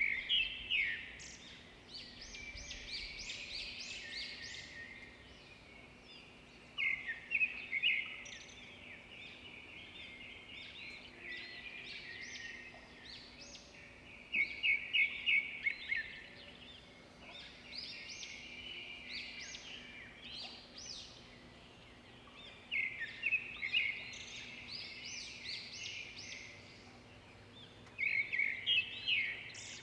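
Birds chirping: a loud burst of rapid, high chirps every six to eight seconds, with softer chattering between the bursts.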